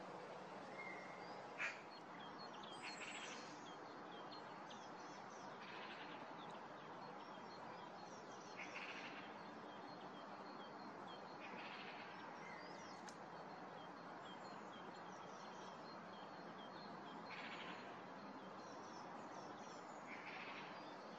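Faint wild songbirds: short song phrases recur every few seconds among scattered high chirps, over a steady hiss. One sharp click sounds a couple of seconds in.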